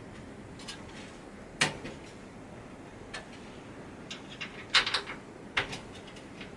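Sharp clicks and taps of a Torx T15 screwdriver working on the screws of a PC's CPU cooler. There is one loud click about a second and a half in, a quick cluster of clicks near five seconds and another click just after.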